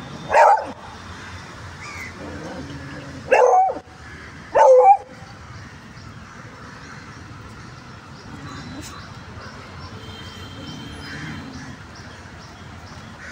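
A dog barking three times, short loud barks: one about half a second in, then two close together at about three and a half and four and a half seconds. The barks sound like a possessive dog warning another dog away from its companion.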